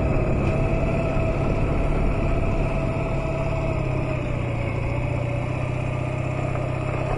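Honda Nighthawk 250's air-cooled parallel-twin engine running steadily under way, with wind noise on the microphone. The engine note drops slightly about halfway through as the bike eases off.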